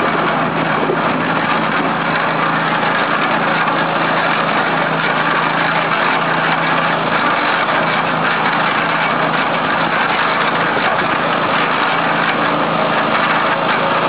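Engine of a portable drum concrete mixer running steadily with an even hum.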